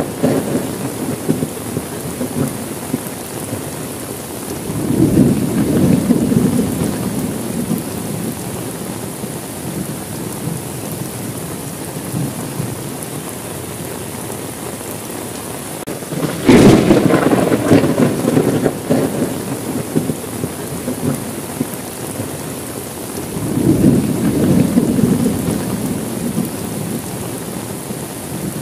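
Steady rain with three rolls of thunder: a rumble about five seconds in, a loud sharp crack just past the middle that rumbles on for a few seconds, and another rumble near the end.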